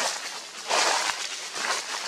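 Dry fallen leaves crunching and rustling under footsteps, with the loudest crunch about a second in.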